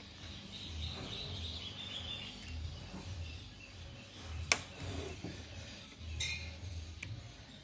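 Handling noise from a flexible flat ribbon cable being fitted by hand into an LCD panel's connector, with one sharp click about four and a half seconds in and a smaller one about a second and a half later.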